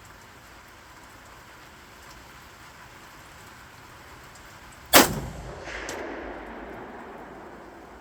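A single gunshot from an AKM-pattern rifle (AK-47 type) about five seconds in, followed by a fainter sharp crack under a second later and a rolling echo that fades over about two seconds.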